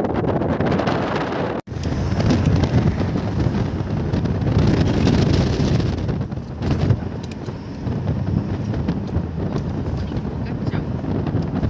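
Wind buffeting the microphone over the steady rumble of a car driving along a road. The sound cuts out for an instant about a second and a half in.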